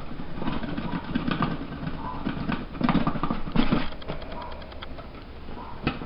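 Bread machine loaf pan held upside down and shaken to work a freshly baked loaf loose: irregular rattling and knocking, with a quick run of clicks a little past the middle.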